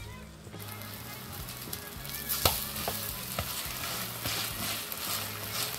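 Napa cabbage pancake (baechu-jeon) frying in oil in a pan, sizzling with scattered pops, starting about half a second in. A single sharp tick about two and a half seconds in is the loudest sound.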